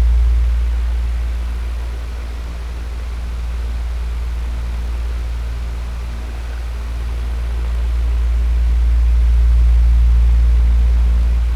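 Electric fan running: a steady rush of air over a strong low motor hum, its loudness slowly swelling and fading, loudest near the end.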